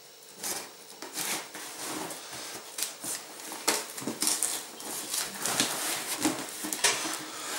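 Cardboard parcel box being worked open by hand: irregular scraping, rustling and tearing of cardboard and packing tape.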